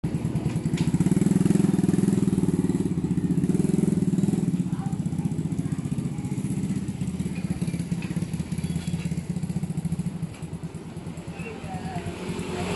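A motorcycle engine running at idle: a steady, fast, low pulsing, loudest in the first few seconds and easing off near the end. A few light metal clinks sound over it.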